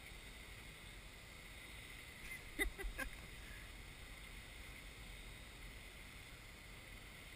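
Quiet room tone of a large indoor pool hall with a faint steady hiss. A brief distant voice calls out about two and a half seconds in.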